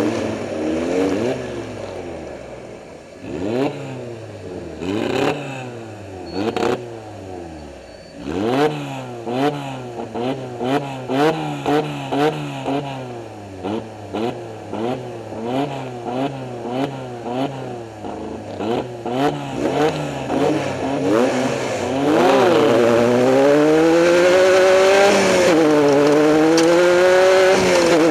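Off-road race vehicle's engine revving up and dropping back in quick, repeated surges, with scattered knocks and clatter. About three-quarters of the way through it turns louder and holds higher revs, its pitch wavering.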